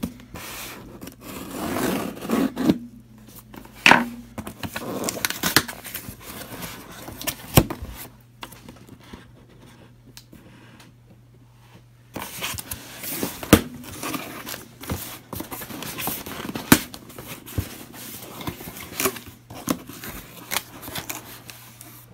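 Sellotape on a cardboard box being cut with scissors and pulled off, then the cardboard flaps opened: irregular snips, rips, scrapes and clicks, with a quieter pause midway.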